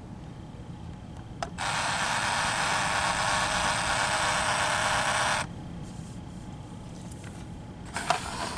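DYMO LabelManager 160 label maker printing: a click, then the print and tape-feed mechanism runs with a steady, even hiss for about four seconds and cuts off abruptly. No label fed out, which the owner takes for the new tape jamming inside.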